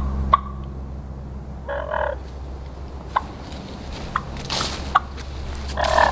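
Wild turkey hen calls run on a diaphragm mouth call. There is a short yelp about two seconds in and another near the end, with several sharp, quick cuts or clucks between them.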